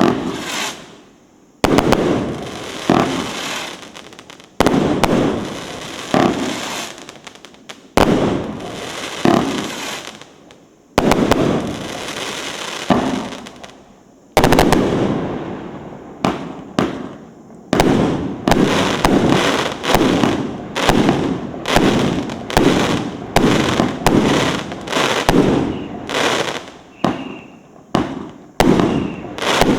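A 112-shot, 1.25-inch-calibre 'Butterfly Kiss' fireworks cake firing. Its first shots come about three seconds apart, each a sharp bang with a fading tail. From about halfway the shots come quickly, roughly one or two a second.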